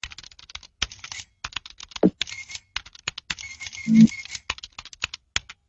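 Rapid, irregular keyboard typing clicks, with a brief low thump about two seconds in and a short low tone about four seconds in, the loudest moment.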